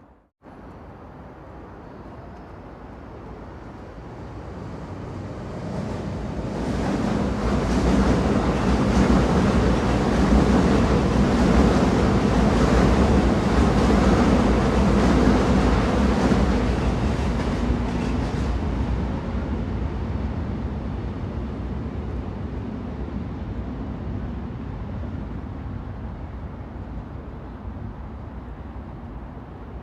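Train rumbling on the rails, its noise building over several seconds, holding loud for about ten seconds, then slowly fading away, as a train going past. The sound cuts out for a moment at the very start.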